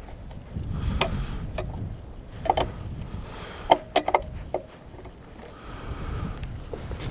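Metal clinks and taps of tools and small chainsaw parts being handled during clutch-bearing service, about seven sharp strikes with a short ring, bunched in two groups, over a low rumble.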